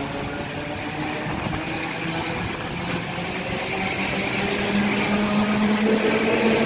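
ET2M electric multiple unit moving along the platform, its electric drive giving a whining hum of several tones over the rumble of the cars; the hum shifts in pitch and grows louder toward the end.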